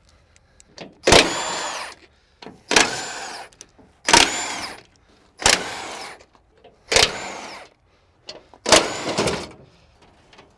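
Cordless electric impact gun undoing the 16 mm bolts of a dozer's engine side panel in six short runs, each starting sharply and its motor whine falling away as it spins down.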